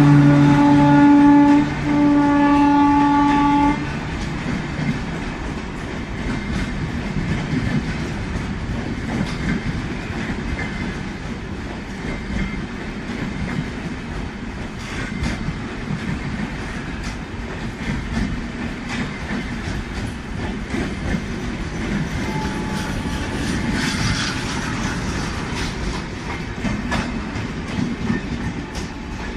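Electric locomotive horn sounding in two blasts, the second cut off about four seconds in, then an express train running past with a steady rumble and the clickety-clack of its wheels over the rail joints.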